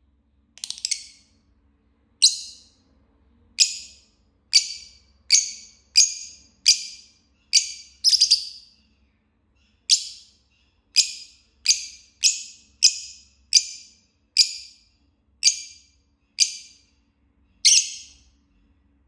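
Fischer's lovebird, green form, giving a run of short, high-pitched chirps, roughly one a second, each cut off quickly, with brief gaps between.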